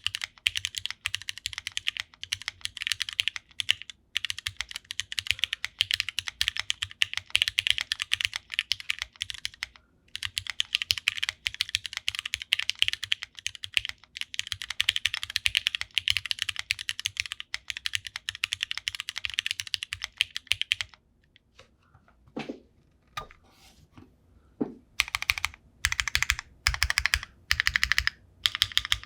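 Bolsalice custom mechanical keyboard with lubed, filmed Cherry MX Black linear switches in a full aluminum plate and GMK Beta keycaps, being typed on. Fast continuous typing for about twenty seconds, then a short pause with a few scattered keystrokes, then evenly spaced single key presses near the end.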